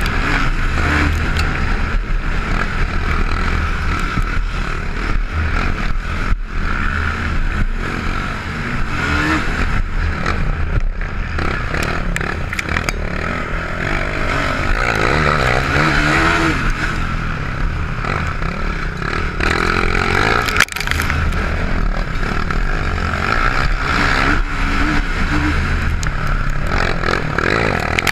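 Can-Am DS450 racing quad's single-cylinder four-stroke engine running hard under throttle, its pitch rising and falling as the rider works the throttle, with a steady low rumble underneath. The sound briefly cuts out twice, about six and twenty seconds in.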